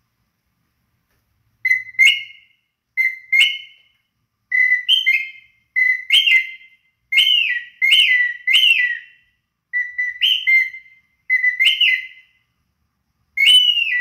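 Handcrafted bird whistle blown in a series of short two-note calls: a steady note that jumps up to a higher swooping note and falls back, repeated about a dozen times with short gaps, used to call in birds.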